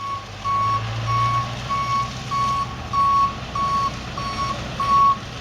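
A vehicle's reversing alarm beeping steadily, about three beeps every two seconds, over a low engine rumble.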